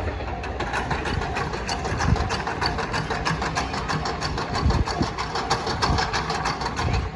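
A train passing over a level crossing, its wheels clacking in a fast, even run over the rail joints, with the crossing's warning bell dinging steadily underneath.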